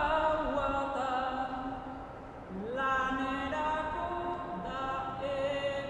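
Unaccompanied singing of a slow Basque melody in long held notes. It fades briefly about two seconds in, then slides up into a new held note.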